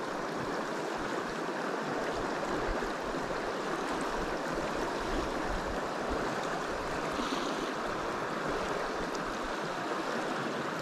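Shallow, clear river running over a stony bed: a steady rush of water through riffles.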